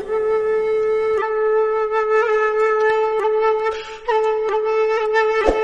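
Background music: a flute-like melody of long held notes, with a short break about four seconds in.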